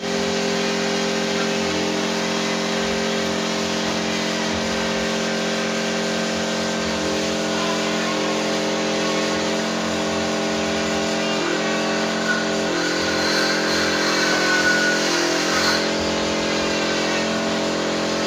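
A machine running with a steady hum, its pitch shifting slightly a few times.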